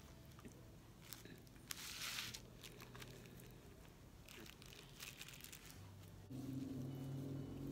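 Faint handling noise of hands working a wet lace stocking over a small bottle on a plastic-covered table, with a louder rustle about two seconds in and a few small clicks.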